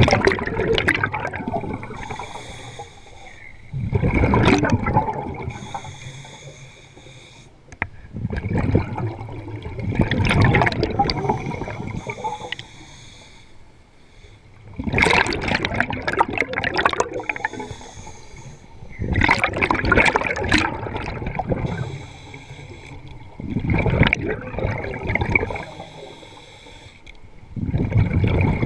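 Scuba diver's exhaled breath bubbling out of the regulator underwater: a gurgling rush of bubbles about every four seconds, in time with the diver's breathing, with quieter stretches between.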